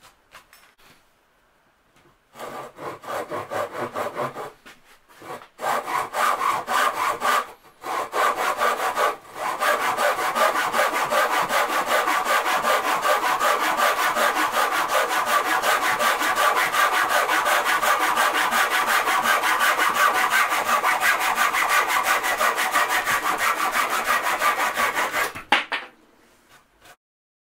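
Hand saw cutting through a wooden board, a rhythmic rasp on each back-and-forth stroke. The sawing starts about two seconds in with a few brief pauses, then runs steadily until it stops near the end as the cut is finished.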